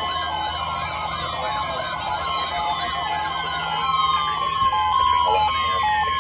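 Several electronic warning tones of a weather-radio alarm test sounding at once: a steady alert tone cutting on and off, a two-note beep alternating about twice a second, and repeated falling sweeps and warbles like a siren, all layered together.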